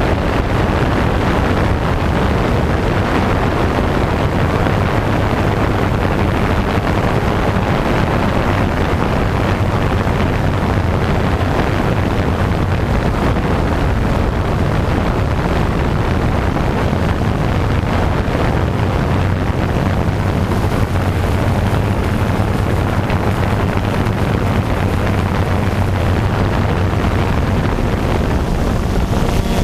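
Vehicle engine running at a steady speed while driving along a dirt road, with wind buffeting the microphone.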